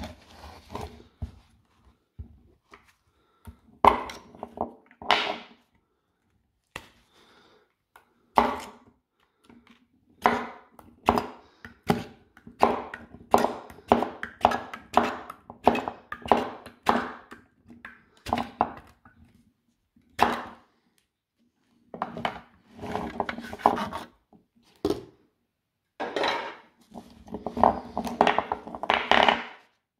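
Irregular clicks, knocks and clatter of hard plastic and metal: Samsung 18650 lithium-ion cells being prised out of a DeWalt Flexvolt battery's plastic cell holder and set down on a wooden bench. The noises come in quick clusters with short pauses between.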